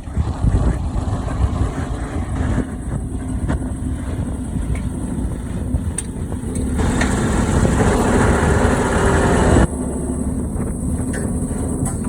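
Heavy truck diesel engine of the KAMAZ-mounted drill rig running steadily, with wind on the microphone. The sound swells louder for a few seconds and then drops back sharply about ten seconds in.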